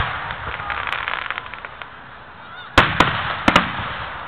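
Aerial fireworks shells bursting: a run of crackling pops between about half a second and two seconds in, then four sharp bangs in quick succession about three seconds in, each trailing off.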